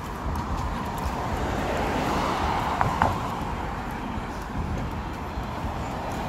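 Road traffic on a bridge: cars going by on the road beside the sidewalk, one swelling past about halfway through, with two sharp clicks near the middle.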